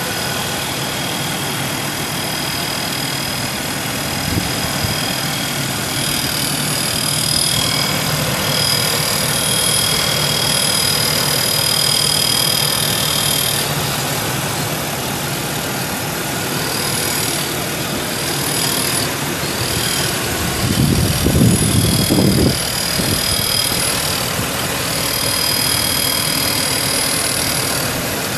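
Ford 4.2-litre OHV V6 idling steadily, heard up close with the hood open, with a thin high-pitched whine that fades in and out. A brief low rumble about three-quarters of the way through.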